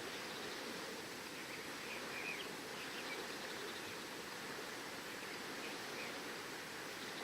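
Steady wash of ocean surf and wind, with a few short bird chirps over it between about one and a half and three seconds in, and once more near the end.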